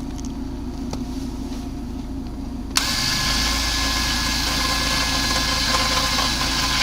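All-terrain vehicle engine running at a steady idle. A little under three seconds in, the sound jumps suddenly louder, with a hiss and a faint high whine added over the engine.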